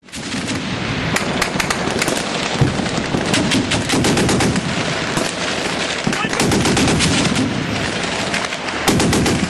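Rapid gunfire: many sharp shots in quick, uneven volleys over a constant noisy rumble.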